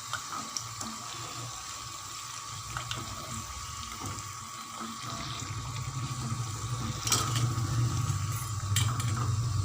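Puris deep-frying in hot oil: a steady sizzle and bubbling, with a few sharp knocks near the end.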